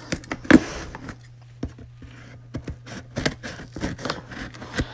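Packing paper rustling and boxes knocking as a shipping carton of ammunition is unpacked by hand, in irregular handling noises with a sharp knock about half a second in.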